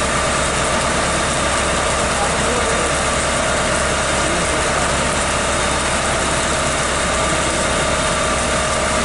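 Steady, unbroken roar of a flame torch firing a jet of fire and sparks up into a tree to burn out a hornet nest.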